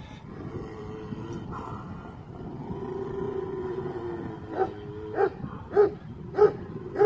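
Large Anatolian shepherd (Kangal-type) dog growling with a long drawn-out pitched tone, then barking five times in a deep, evenly spaced run, under a second apart, about halfway through.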